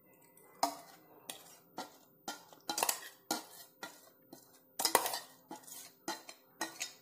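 A metal spoon scraping and clinking against the inside of a stainless-steel mixer-grinder jar as ground chutney is scooped out into a glass bowl: about a dozen irregular clinks and knocks, some with a faint metallic ring.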